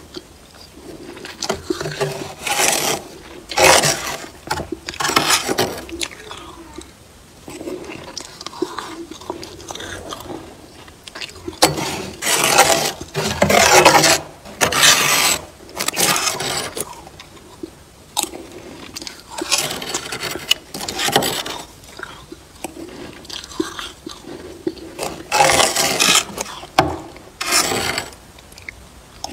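Thick freezer frost being scraped with a spoon and fingertips: a run of irregular, gritty scraping strokes, some much louder than others.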